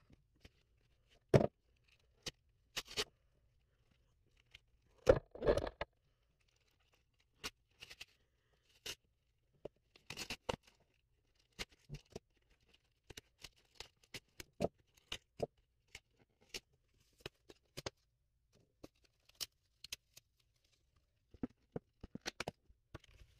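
Cardboard-and-plastic blister pack being torn open and the booster packs pulled out: scattered crinkling, tearing and scraping in short bursts, with a few louder rips.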